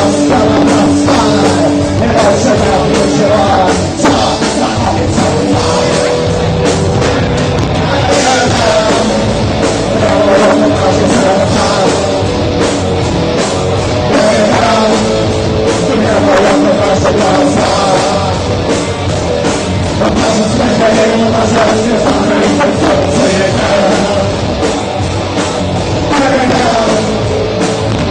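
A rock band playing live loudly, with drums and singing.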